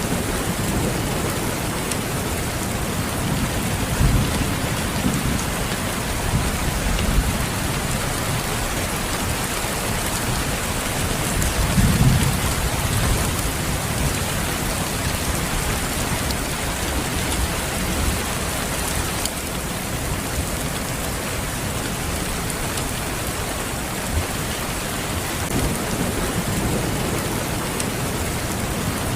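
Steady rain falling, a continuous hiss, with low rumbles of thunder swelling under it, the strongest about twelve seconds in.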